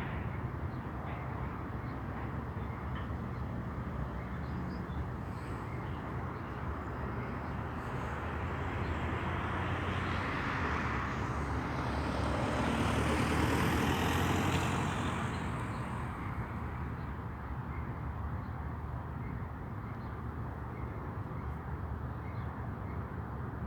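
Hopper cars of a long Canadian Pacific potash freight train rolling past, a steady rumble of wheels on the rails that swells louder for a few seconds around the middle and then settles back.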